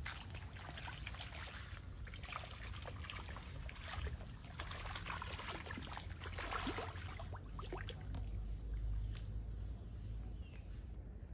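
Water trickling and splashing in quick, irregular bursts over a low rumble, thinning out near the end.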